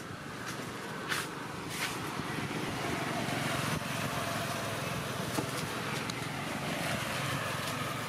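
A motor vehicle passing, its steady engine noise swelling over the first few seconds and slowly easing off, with a couple of light clicks near the start.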